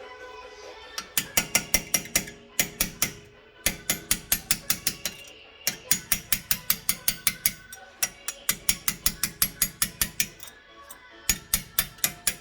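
Hammer tapping a pin punch to drive out the brake caliper's pad-retaining pins: quick, ringing metallic taps about five or six a second, in several runs with short pauses between them.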